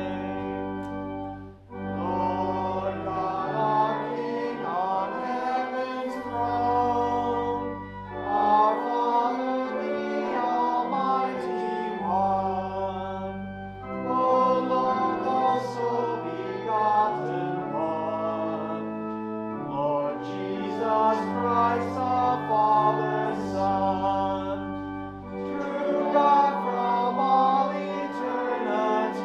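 Church organ accompanying a congregation singing a hymn, with low pedal notes entering and dropping out under the chords. There is a brief break between lines about one and a half seconds in.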